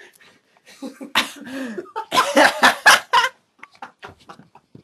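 A young man's loud, harsh vocal outbursts without words: one burst about a second in, then a quick run of about six bursts a little after two seconds in.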